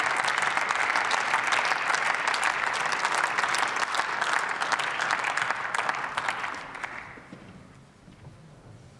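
Members of parliament applauding, many hands clapping at once, at the close of a speech; the applause dies away about seven seconds in.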